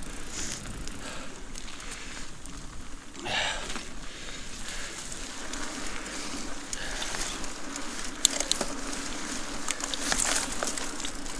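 Mountain bike rolling along a dirt track: tyres crunching and crackling over the gritty surface, with a faint steady hum underneath and a single sharp click about eight seconds in.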